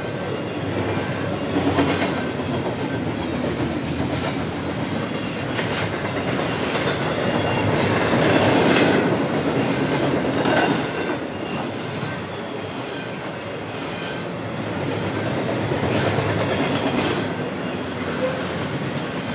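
Double-stack container freight train passing close by: steel wheels rumbling steadily and clacking on the rails as the well cars roll through.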